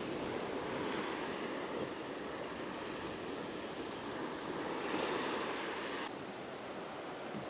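Sea waves washing and breaking against a rocky shore, a steady rushing that swells twice and drops off abruptly just after six seconds.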